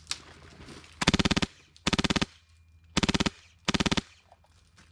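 Airsoft gun firing on full auto in four short bursts of rapid shots, each about half a second or less, with short gaps between.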